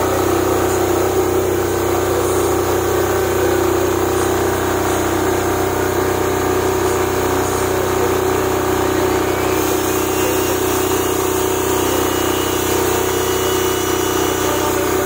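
Blackhawk 8,700-watt enclosed diesel generator running at a steady speed, a continuous even engine hum.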